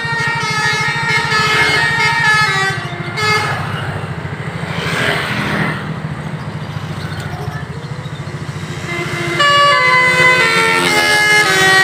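Basuri telolet musical bus horn playing a tune of quick stepped notes, pausing about three and a half seconds in and starting again louder near the end. The bus engine runs steadily underneath.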